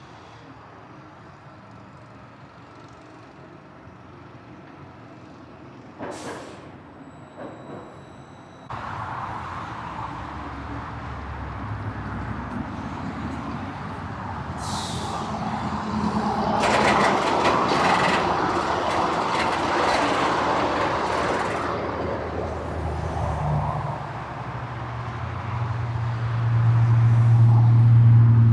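Steel roller coaster train running on the track during a test run: a noisy rumble that comes in about a third of the way through and builds to its loudest around the middle. A steady low hum builds near the end.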